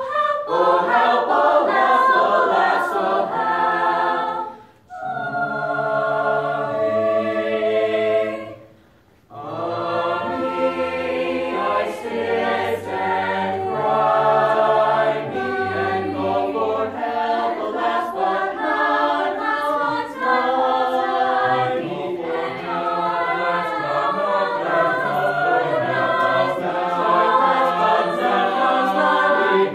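Small mixed-voice choir singing a cappella in several parts, a madrigal, with two short breaks about five and nine seconds in.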